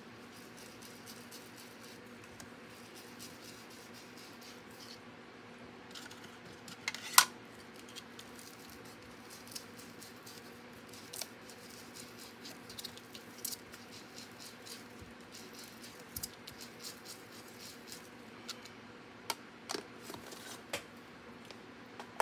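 Quiet handling sounds of white cardstock being edged with a pigment ink pad on a glass craft mat: scattered soft taps and scrapes, with one sharper click about seven seconds in, over a faint steady hum.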